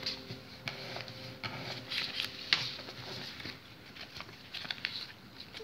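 Sheet of printed paper rustling and crinkling as hands fold and crease it against a table, in quick irregular scratches and crackles.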